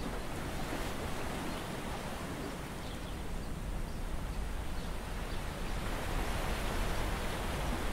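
Steady wash of seawater and surf over shore rocks, a constant hiss that grows a little louder near the end.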